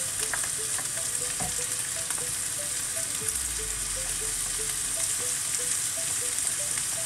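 Diced onion, capsicum, carrot and chili sizzling steadily in hot oil in a frying pan.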